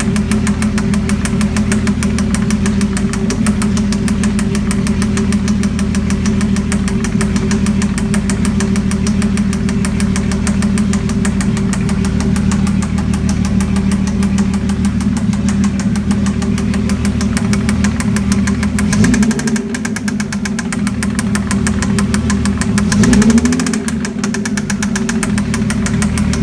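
Mazda MX-6 / Ford Probe 2.5-litre V6 idling with a steady, rapid knock, its speed rising briefly twice near the end. The engine has just been swapped in and knocks; the owner does not know the cause.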